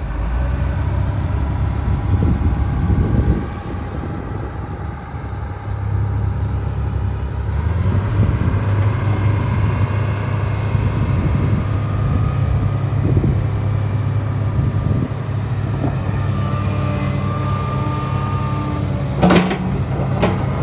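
Komatsu PC300LC-8 excavator's six-cylinder turbo-diesel engine running steadily, its level rising and falling slightly. Two short, sharp sounds come near the end.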